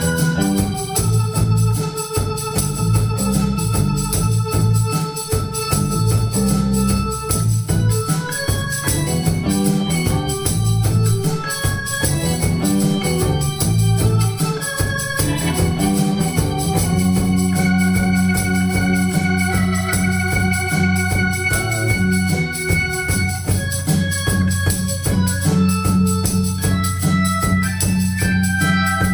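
Live band playing an instrumental jam: sustained organ-like keyboard chords and electric guitar over a bass line and a steady beat. About halfway through, the low notes settle into long held tones.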